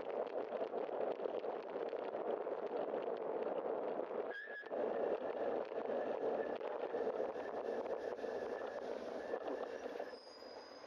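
Steady rush of wind and tyre noise from a bicycle rolling along a wet street. About four seconds in, a steady high squeal of the bike's brakes joins and holds for about five seconds as the bike slows. The rushing drops near the end as the bike comes to a stop.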